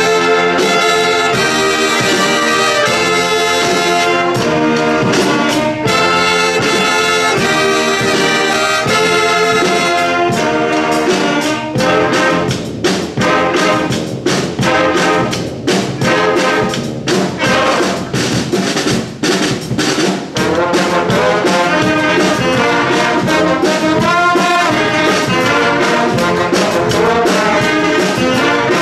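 Student big band of saxophones, trombones, trumpets and tuba playing together. About halfway through the playing turns choppy, with short separated hits and brief gaps, before the full band resumes sustained playing.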